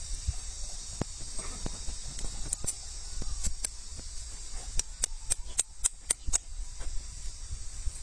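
Hoof knife paring a horse's hoof: an irregular run of sharp, crisp clicks as slivers of horn are cut away, thickest in the middle.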